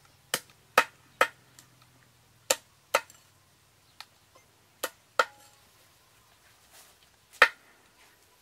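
A cleaver chopping on a board: about nine sharp strikes at an uneven pace, with pauses between, the last one near the end the loudest.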